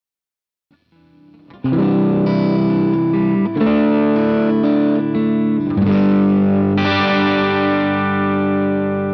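Fender electric guitar played with a clean tone. A few quiet notes come in about a second in, then full chords are struck every one to two seconds and left to ring, fading slightly near the end.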